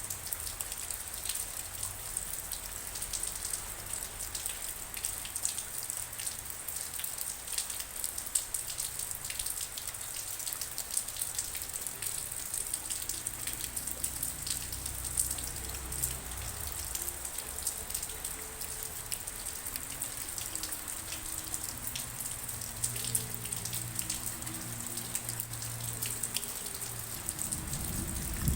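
Steady rain, with many individual drops ticking sharply on a nearby surface over the hiss of falling rain. A low rumble begins to swell near the end.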